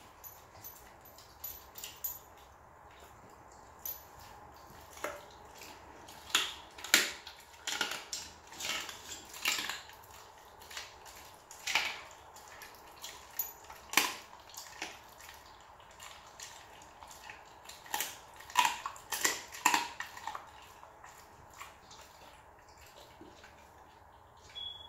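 Rottweiler chewing raw bone-in chicken pieces: irregular wet crunches and clicks of jaws and bone. The crunching is busiest through the middle and thins out near the end.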